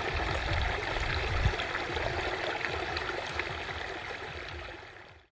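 Steady hiss of a stream flowing, with a low rumble underneath and a few faint clicks, fading out to silence near the end.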